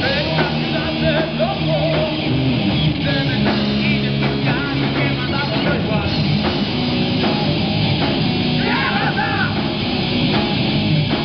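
Live heavy metal band playing loud: electric guitars, bass guitar and drum kit together, with bent and sliding guitar notes.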